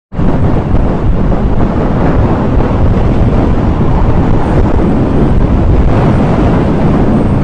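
Loud, steady wind rush and road noise from a motorcycle riding at speed on a dual carriageway, the wind buffeting the microphone of the bike-mounted camera.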